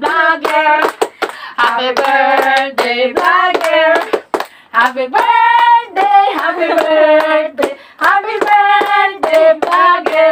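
A small group of women singing a birthday song together in a small room, clapping their hands in time.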